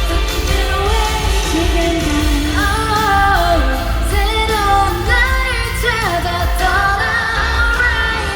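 A K-pop song performed live in a hall: a sung melody over a bass-heavy backing track. The bass drops out right at the end.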